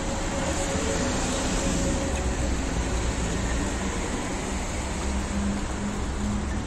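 LifeStand standing power wheelchair's electric drive motors running as the chair turns and moves over paving stones, a low whine growing stronger toward the end, over a steady rushing outdoor noise.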